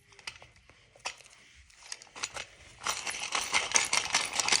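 A pen being worked by hand: a few faint clicks, then from about three seconds in a fast, dense run of scratchy clicking.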